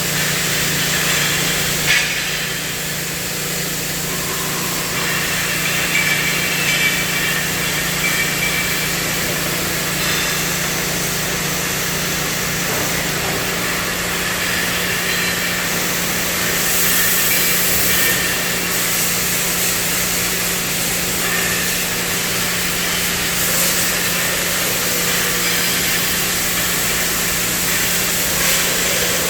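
CNC thermal cutting machine running: a steady hiss from the cutting torch over a constant low hum from the machine.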